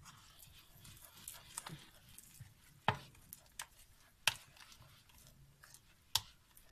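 Batter being stirred with a metal utensil in a plastic bowl: soft scraping with scattered sharp taps of metal on the bowl, the three loudest about three, four and six seconds in.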